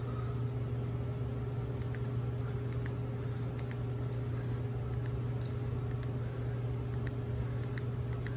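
Buttons on a small handheld remote for LED underglow lights being pressed over and over: about a dozen short, irregular clicks over a steady low hum.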